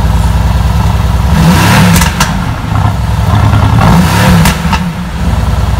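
Sports car engine revved hard twice from a steady run, rising and falling each time, with a few sharp cracks from the exhaust near the top of the revs.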